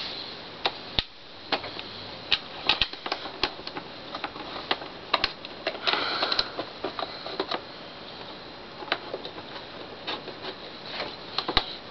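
Irregular small clicks and taps, with a short scrape about six seconds in, from a screwdriver, screws and hands working on the case of a cassette recorder as it is screwed back together.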